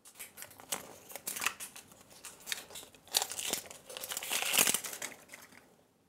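Surprise egg's wrapper being crinkled and torn open by hand: irregular crackling and rustling, loudest near the end before it stops.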